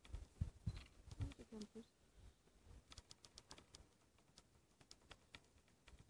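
Near silence: faint scattered clicks, with a brief faint call about a second in.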